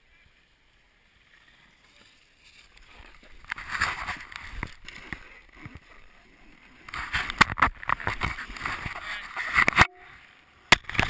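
Snowboard sliding and scraping over snow, heard through a head-mounted camera. It is nearly quiet at first, then a rushing scrape builds from about three seconds in and turns into loud, ragged bursts in the last few seconds.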